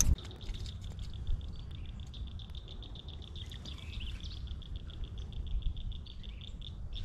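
A steady, high-pitched trill of rapid, evenly spaced pulses from a small wild creature, running unbroken for about seven seconds and cutting off abruptly at the end, over a low rumble.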